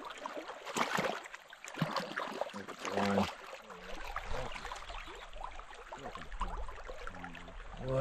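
Shallow creek water running over stones, with scattered splashes and sloshing from hands moving in the water around a trout held in the current, most of them in the first three seconds.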